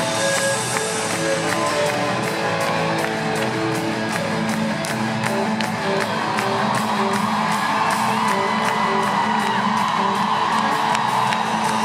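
Live rock band playing an instrumental passage with a steady drum beat and guitar. Audience cheering swells in from about halfway through.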